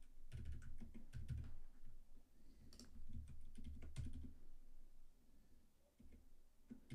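Computer keyboard keys tapped in short quick runs with pauses, growing fainter after about four and a half seconds, over a low steady hum.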